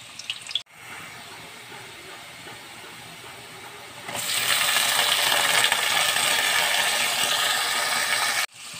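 Sliced onions sizzling steadily in hot oil in a wok. About four seconds in, chopped tomatoes and green chillies are dropped into the oil and the sizzle becomes much louder, cutting off suddenly near the end.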